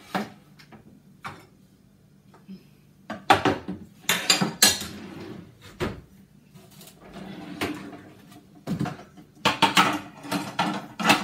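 Metal pots, pans and lids clanking and clattering against each other as they are handled and stacked. There is a bunch of sharp knocks about three seconds in and another near the end.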